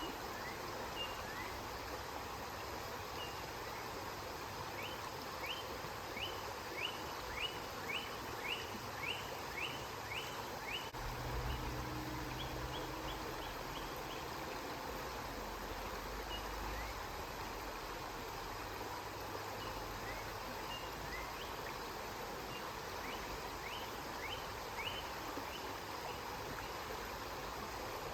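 Steady rush of flowing river water, with a run of short high chirps, about two a second, in the middle and a few more near the end. A low rumble joins briefly about halfway through.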